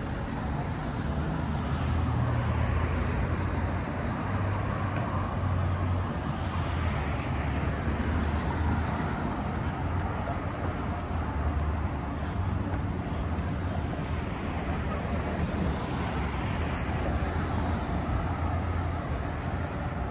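City street traffic noise: a steady wash of passing vehicles with a continuous low rumble.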